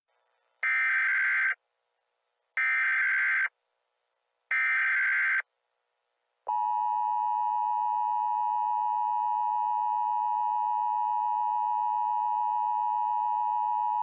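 Emergency Alert System alert opening. Three short buzzing bursts of SAME header data, each just under a second long, come in the first half. About a second later the steady two-tone EAS attention signal starts and holds unchanged.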